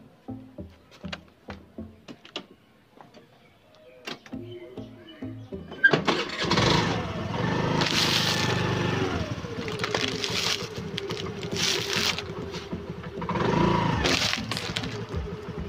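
Background music with a steady beat. About six seconds in, a car engine comes in suddenly and runs loudly, its pitch falling partway through, as the car rolls slowly forward.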